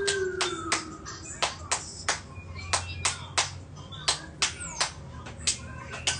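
Sharp clicks at irregular intervals, two or three a second, over a low steady hum.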